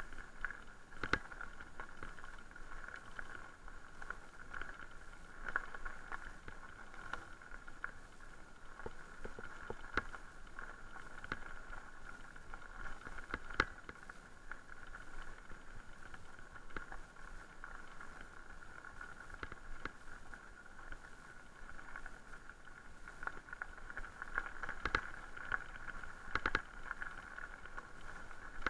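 Haibike Sduro e-mountain bike rolling along a gravel track: steady tyre noise on loose stones, with scattered sharp clicks and knocks from stones and the bike's frame.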